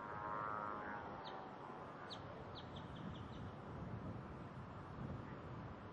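A small bird chirping a quick run of short, high calls in the middle, over a steady background of faint outdoor noise.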